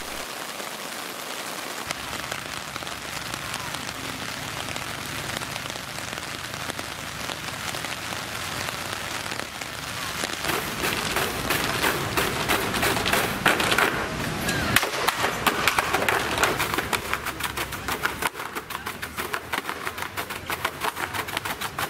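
Steady rain falling, heavier and louder from about ten seconds in. Near the end, a fast run of sharp rhythmic strokes from push brooms struck and swept on a stage floor.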